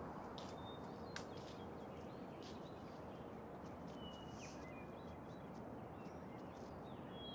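Faint woodland ambience: a steady outdoor hush with a few soft footsteps on fallen leaves and a few short bird chirps.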